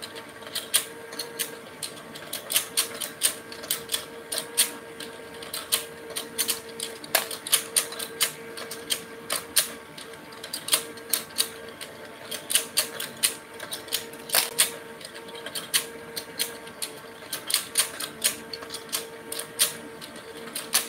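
Battery-powered fishing game toy running: a steady motor hum under rapid, irregular plastic clicking from the turning fish board.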